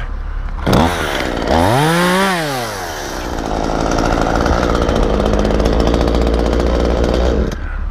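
Chainsaw revved up and back down once, then held at high speed for about four seconds before cutting off near the end.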